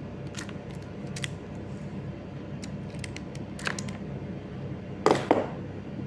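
Cat6 crimping tool clicking as it is worked on an RJ45 connector: several light clicks, then a loud double snap about five seconds in as the crimp is squeezed home.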